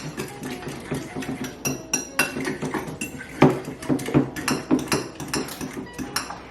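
A kitchen utensil clinking and scraping against a mixing bowl in quick, uneven strokes while pancake batter is stirred.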